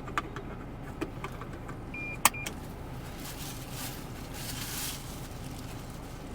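Car cabin noise on the move: a steady low road rumble with a few light clicks, a short two-part beep with a sharp click about two seconds in, and a swell of hiss from about three to five seconds in.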